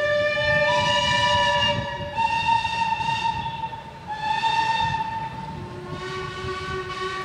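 Steam locomotive whistles: several long blasts at different pitches, some overlapping, over the rumble of a steam engine moving into the platform.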